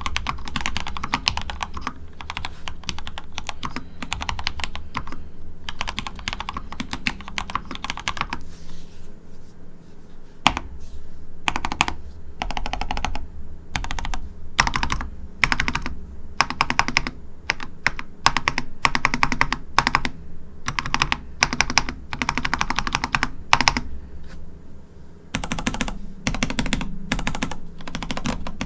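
Typing on a mechanical keyboard with lubed Gateron Yellow linear switches, picked up on a Shure SM57 microphone. Fast runs of keystrokes stop for a pause about eight seconds in, then come back in bursts.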